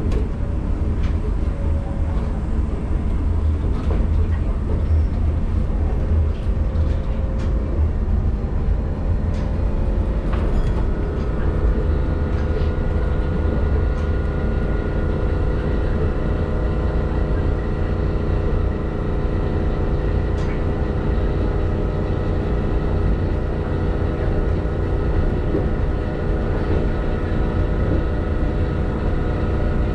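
Chiba Urban Monorail 1000 Series suspended monorail car running between stations: a steady low rumble of running noise, with a steady whine that joins about ten seconds in and holds.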